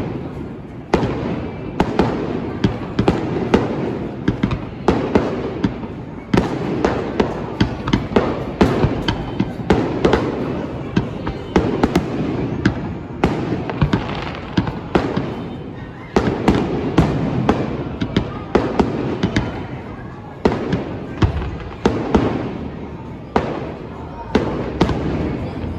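Fireworks display: a dense, continuous barrage of bangs, several a second, over a steady rumble of echoing explosions.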